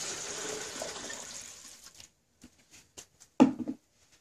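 Water being poured into a large cooking pot, a steady rush that tails off about two seconds in. A few light knocks follow, then a louder clunk near the end.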